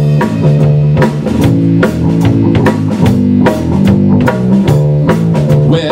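Rock band playing an instrumental passage: a drum kit beat with regular kick and cymbal hits under a walking bass guitar line and electric guitar chords.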